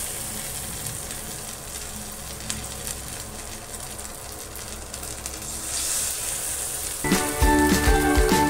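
Batter-coated idli pieces deep-frying in hot oil in a kadhai: a steady sizzle with a few faint crackles, swelling briefly about six seconds in. Background music comes in about seven seconds in.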